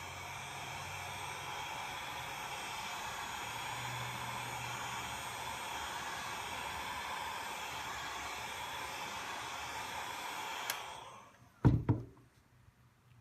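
Handheld hot-air tool blowing steadily, heating the display adhesive to soften it; it shuts off about eleven seconds in, followed by two sharp knocks.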